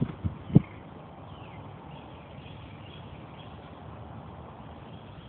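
Three short, dull low thumps in quick succession within the first half second, the last one loudest, followed by steady outdoor background noise.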